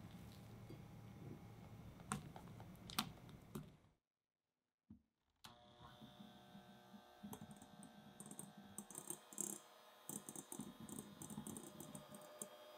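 A spatula stirs chocolate cream in a glass bowl, with two sharp taps about two and three seconds in. After a short silence an electric hand mixer runs, whipping cream: its motor hums steadily while the beaters tick rapidly against the glass bowl.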